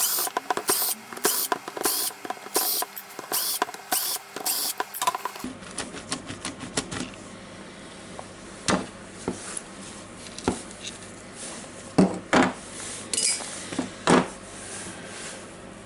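Hand tools and plastic and metal parts clicking and knocking as a cordless impact driver is taken apart: a regular run of sharp clicks about twice a second for the first five seconds or so, then scattered single clicks and knocks.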